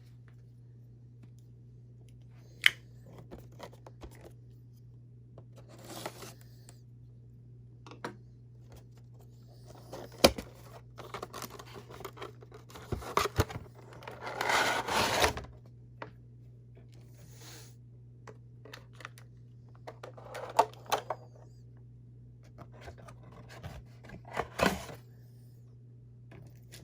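Boxed action figure packaging being opened by hand: scattered clicks and scrapes of cardboard and plastic, with a longer stretch of tearing and rustling about halfway through.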